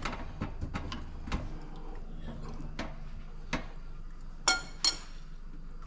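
Scattered light clicks and taps of kitchen utensils on a metal wire rack over a stainless steel sink as fish are brushed with oil. Two sharp, ringing clinks come about four and a half seconds in, and a low hum stops about a second and a half in.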